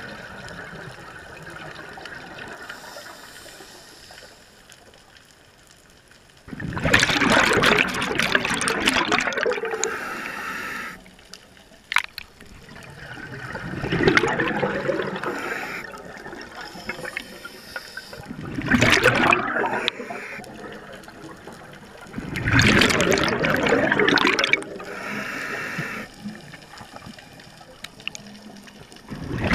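Scuba diver breathing through a regulator underwater: a fainter hiss on each inhalation, then a loud burst of exhaled bubbles, repeating about every four to five seconds. A single sharp click about twelve seconds in.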